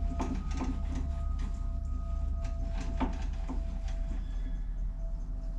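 Craftsman 101 metal lathe running on a test after its carriage and gears were reassembled: a steady motor hum with a steady whine, and light irregular clicks. A higher tone in the whine drops out about halfway through.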